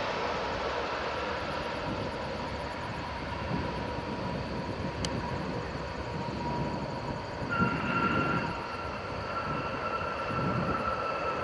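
Jet airliner on its landing roll: steady jet engine noise with a whine. About seven and a half seconds in, a higher whine sets in and the engine noise grows a little louder.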